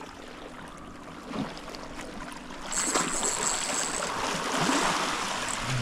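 Sea water washing and splashing against shore rocks, quiet at first and swelling about three seconds in, with a thin high whine for a second or so at the same time.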